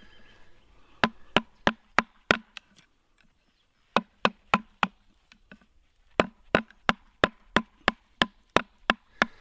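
Batoning: a birch round striking the spine of a fixed-blade D2-steel survival knife driven into a split of birch, making quick sharp knocks about three a second. The knocks come in three runs, with short pauses about three and six seconds in.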